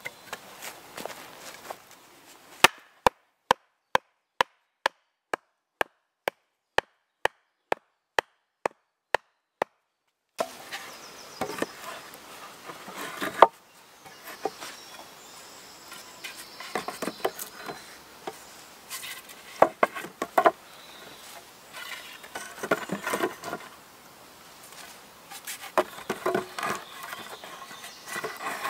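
Wooden logs knocking and clunking as they are handled and stacked between upright stakes, over a rustle of leaf litter. Early on there is a run of sharp wooden strikes, about two a second, with silence between them.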